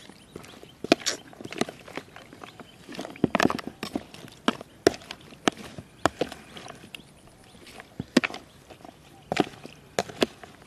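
Utensils knocking and clacking against a mixing bowl while a jellyfish salad is tossed: a run of irregular sharp taps and clicks, some in quick clusters.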